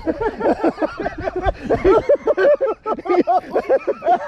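Men hollering and shrieking in excitement, a fast run of high-pitched wordless yells and squeals as a big smallmouth bass is netted.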